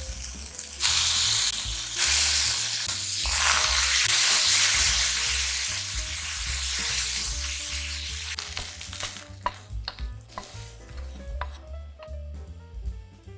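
Sliced green peppers sizzling in a hot frying pan: the sizzle jumps up loudly about a second in as oyster sauce and soy sauce go in, and carries on while the peppers are stir-fried with a wooden spatula. It fades out after about nine seconds and is followed by a few light clicks.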